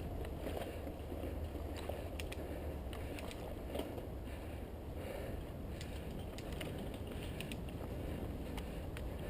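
Mountain bike riding along a dirt trail: steady wind rumble on the microphone and tyre noise, with scattered small clicks and rattles from the bike.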